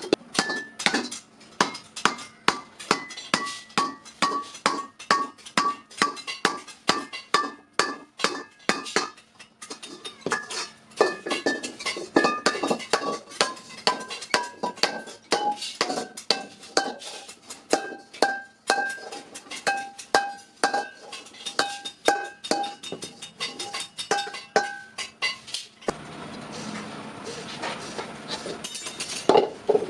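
Hammer blows on an iron kadai, about three a second, each strike leaving the metal ringing; the pitch of the ring shifts gradually from blow to blow as the pan is worked. About 26 s in the hammering stops and a rougher, noisier scraping sound follows.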